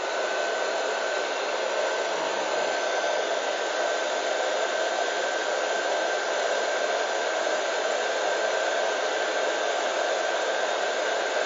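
Heat gun blowing steadily, with a rush of air and one steady high whine, shrinking heat-shrink tubing onto a small tape-drive capstan.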